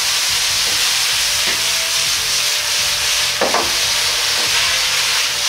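Sauce sizzling hard in a hot wok of fried chicken and cucumber over a high gas flame. A metal ladle scrapes and strikes the wok, once faintly about a second and a half in and more clearly just past halfway.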